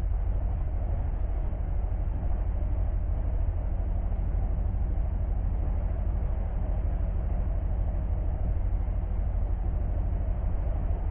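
Steady low rumble of a running engine, holding an even level with no revving or breaks.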